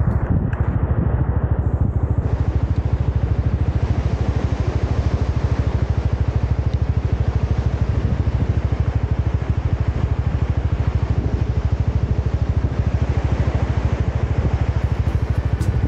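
Motorcycle engine running steadily under way, with a deep, fast and even pulsing.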